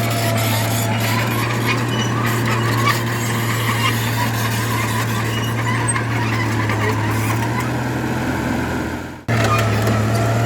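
Heavy earthmoving diesel machinery running steadily with a constant low engine hum, with scattered clicks and rattles over it. The sound dips and cuts out just after nine seconds, then comes back at the same level.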